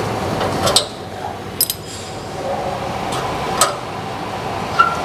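A few sharp metal clinks from the spare-tire carrier of a Suzuki New Carry pickup as the spare wheel is lowered out of it by hand.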